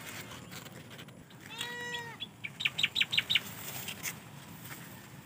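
An animal calls once, a drawn-out pitched call of about half a second, roughly one and a half seconds in. A quick run of six or seven short, high chirps follows.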